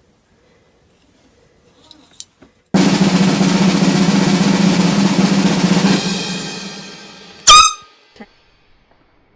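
A snare drum roll starts abruptly, runs steadily for about three seconds and then fades away. Near the end comes a very brief, sharp, high-pitched blast, the loudest sound here.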